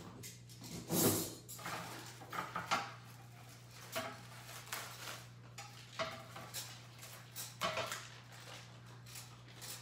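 Plastic wrap crinkling and rustling in irregular bursts as it is pulled off a stack of charger plates, with occasional knocks of the plates being handled; the loudest rustle comes about a second in. A steady low hum runs underneath.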